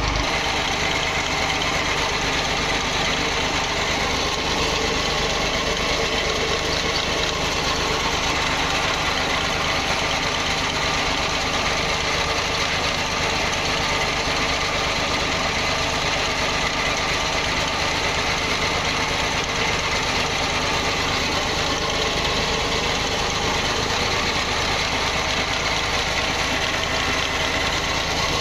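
Stationary engine running steadily, turning flat belts, pulleys and a line shaft in a small oil mill: an even, continuous mechanical clatter.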